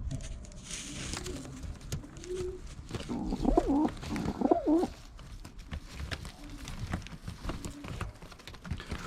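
Racing pigeons cooing, with low repeated coos throughout and a louder, busier stretch of cooing in the middle, among small scattered knocks and rustles.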